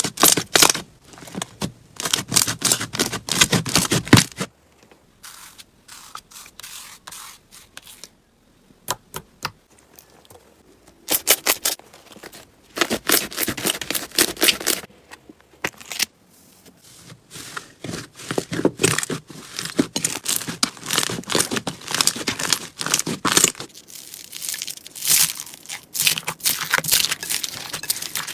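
Slime being worked by hand, giving rapid crackling and popping clicks in bursts of a few seconds, with quieter pauses between them.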